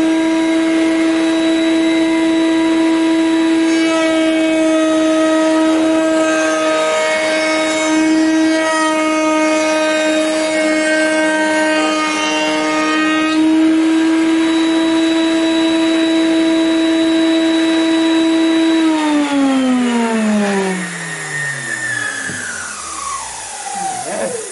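Table-mounted router running at full speed with a steady high whine; from about four seconds in to about thirteen seconds a piece of timber is fed across the bit, adding rough cutting noise. Near the end the router is switched off and its whine falls steadily in pitch as it spins down to a stop.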